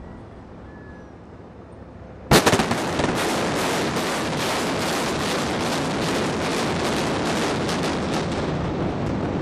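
Controlled-demolition explosive charges going off: one sharp, very loud bang about two seconds in, then a rapid crackling string of smaller bangs that keeps going.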